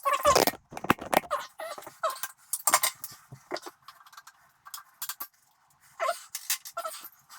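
Handling noise: a heavier knock and scrape in the first second or so, then scattered light clicks and clinks as objects are moved about.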